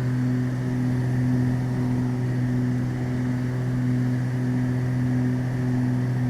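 Cabin sound of a Beechcraft Baron's twin piston engines and propellers running steadily in the climb, a constant drone with a slow, regular wah-wah pulsing in it.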